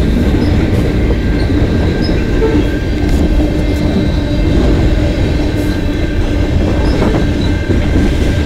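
Freight train tank cars rolling past at close range: a steady rumble of steel wheels on the rails, with a faint thin steady whine above it.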